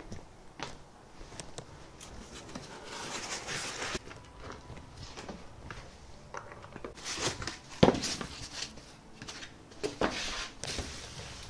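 Cardboard and foam packing being handled and pulled out of a shipping box: rustling and scraping with scattered knocks. The loudest is a sharp knock about eight seconds in.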